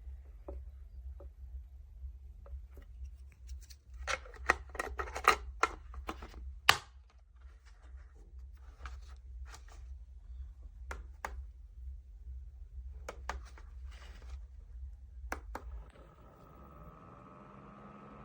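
Clicks, taps and scrapes from a small plastic device being handled, with a cluster of loud sharp clicks about a quarter of the way in. Near the end, the mini evaporative air cooler's small fan starts and runs with a steady hum.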